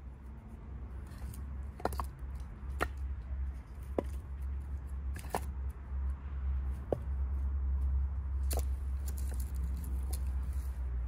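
Split firewood logs knocking against one another as they are picked up and stacked into an armload. There are about six sharp wooden knocks, roughly a second or so apart, over a low steady rumble.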